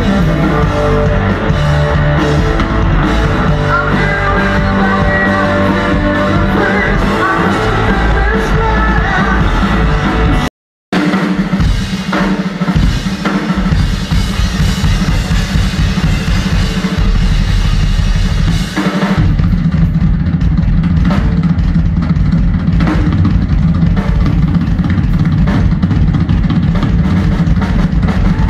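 Live rock band playing, with singing, electric guitar, bass and drums, until an abrupt cut about a third of the way in; after it a drum solo on a full rock kit, bass drum, snare and cymbals, carries on alone.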